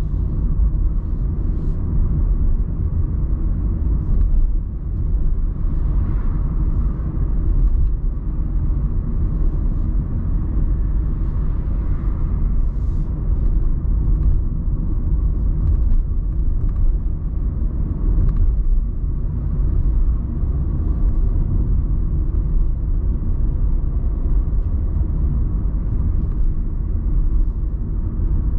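Car driving along a road, heard from inside the cabin: a steady low rumble of road noise.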